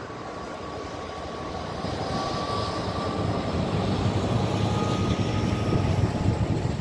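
Class 66 diesel locomotive 66789's two-stroke V12 engine working as it approaches and passes, hauling freight wagons. The sound grows louder from about two seconds in, with a deep rumble from the engine and the wagons and a steady whine above it.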